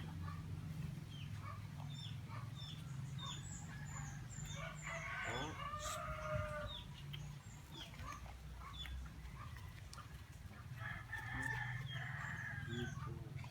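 A rooster crowing twice, about five seconds in and again near the end, among small birds chirping in short repeated notes, over a steady low hum.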